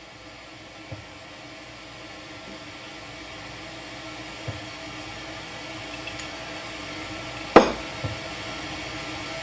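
A steady low hum slowly growing louder, with a couple of soft thumps and one sharp knock about seven and a half seconds in, followed by a smaller one.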